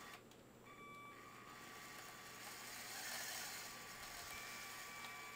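Faint steady whine of the Lego truck's small electric motors and plastic gearing, which drops out for a moment just after the start and then runs on.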